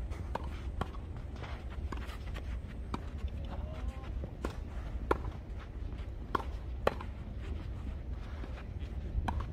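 Tennis balls being struck back and forth by rackets in a doubles rally: sharp, irregular pops of strings and ball bounces about once a second, with players' footsteps on the court.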